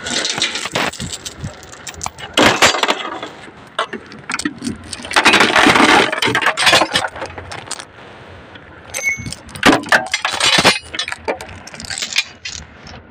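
Heavy steel lifting chains clanking and rattling on a steel truck bed, in several bursts of metallic clinks, the biggest about two and a half, six and ten seconds in.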